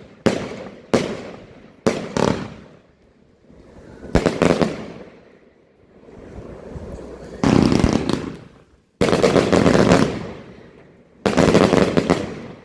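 A 144-shot, 25 mm fireworks cake firing: about four separate single shots, then dense volleys of rapid-fire shots about every two to three seconds, each lasting around a second.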